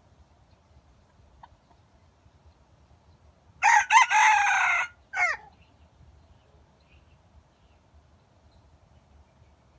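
Red junglefowl rooster crowing once, about three and a half seconds in: a loud crow of about a second and a half, broken off and followed by a short final note.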